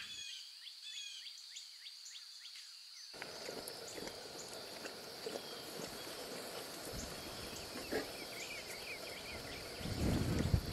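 Wildlife ambience: a steady high insect drone with many short bird chirps. About three seconds in, a louder rushing background comes in, and there is a brief low rumble near the end.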